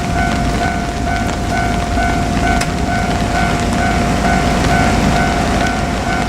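Japanese level-crossing warning bell ringing steadily, a little over two rings a second, over the rumble of a JR Kyushu 817 series electric train running through the crossing.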